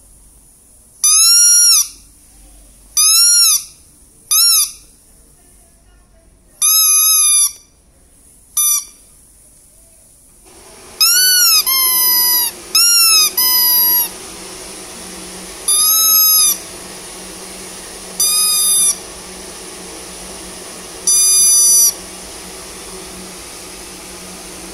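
Squeaker in a plush dog and cat toy with a rubber sheep's head, squeezed by hand about a dozen times. Each squeeze gives a loud, pitched squeak that rises and falls in pitch, lasting about half a second to a second. A faint steady hum runs under the squeaks in the second half.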